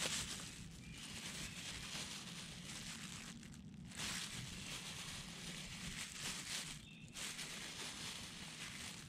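Thin plastic dog waste bag crinkling and rustling as a hand scoops up a dog dropping through it and turns the bag inside out, with two brief pauses.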